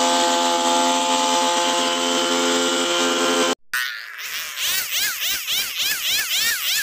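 Petrol hedge trimmer's small engine running at a steady speed. After a cut about three and a half seconds in, a quieter high tone rises and falls about twice a second.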